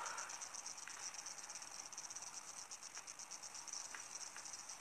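Faint, steady, high-pitched chirping of a cricket, a fast even pulse, with a few faint ticks.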